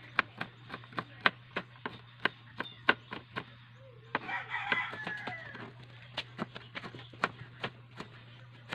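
Kitchen knife chopping on a plastic cutting board in quick, regular knocks, about three a second: garlic being chopped, then a tomato sliced near the end. A rooster crows in the background about four seconds in.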